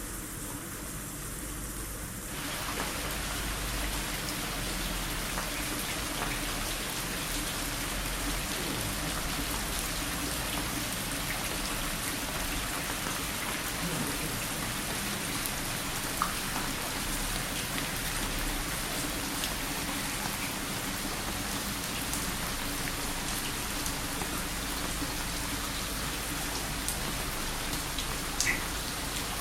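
Steady tropical rain falling and pattering on surfaces, growing louder about two seconds in and then holding steady, with occasional sharper drip ticks.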